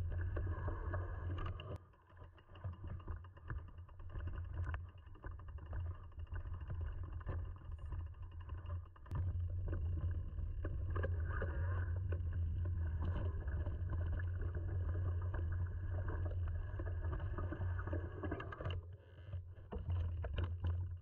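Mountain bike riding over a rough forest singletrack, heard from a bike-mounted camera: a steady low rumble of the trail and air on the microphone, with many small clicks and knocks as the bike rattles over roots and stones. The rumble drops briefly about two seconds in and again near the end.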